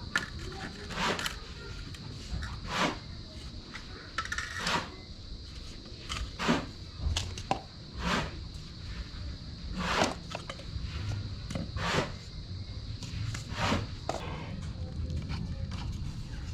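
A series of short separate scrapes or knocks, roughly one every second or two, over a steady high whine.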